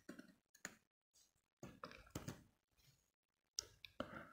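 Near silence with a few faint, scattered clicks of computer keys being pressed.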